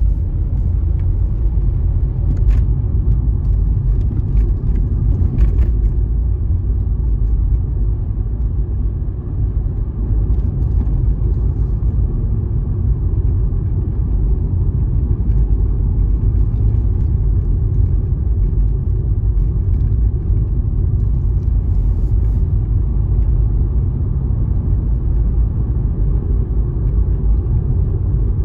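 A car driving along the road: a steady low rumble of road and engine noise, with a few faint ticks in the first few seconds.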